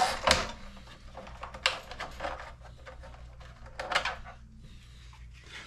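Hard 3D-printed plastic parts of a 170mm electric ducted fan knocking and clicking as the fan housing and motor assembly are handled and lifted out of the test stand: a handful of sharp knocks, the loudest about a third of a second in and near four seconds, over a steady low hum.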